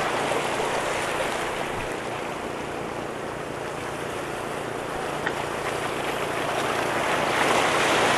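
Sea waves washing against the rocks of a breakwater, with wind buffeting the microphone; the wash swells louder near the end.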